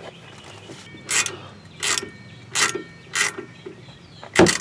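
A small ratchet wrench clicking in four short strokes, about 0.7 s apart, as a grease fitting is tightened into a new tie rod end, then a louder, sharper clack near the end.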